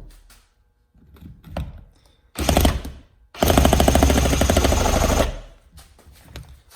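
Reciprocating saw cutting into a metal oil filter housing: a short burst, then about two seconds of continuous rapid-stroke cutting. A sharp click and a few handling knocks come before it.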